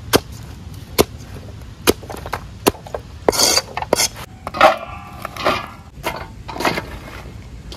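Cleaver chopping bundles of drumstick (moringa) pods on a wooden log block, sharp single chops about once a second. In the middle comes a couple of seconds of rustling and clattering with a little metallic ring, then more single chops.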